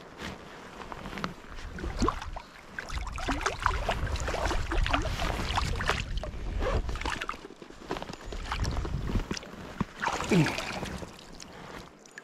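Water splashing and sloshing as a hooked brown trout thrashes at the surface close in and is taken in hand. The splashes come thick and fast from about two seconds in, ease off, and flare up again around ten seconds, over a low rumble.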